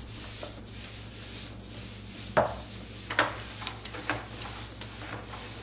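Household iron sliding back and forth over silicone dry-mounting paper laid on the back of a rice-paper painting, a steady papery rubbing. A handful of sharper swishes come in the second half as the strokes speed up.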